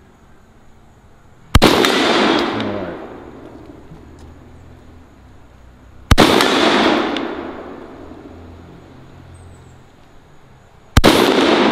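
Beretta 1301 Tactical 12-gauge semi-automatic shotgun firing slugs: three shots about five seconds apart, each followed by an echo that fades over a second or two.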